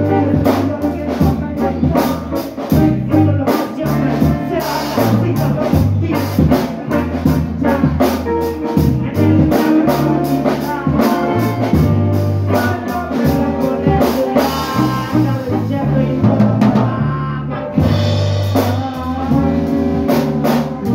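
Live band playing loud: a drum kit with frequent cymbal hits over a heavy, low electric guitar line.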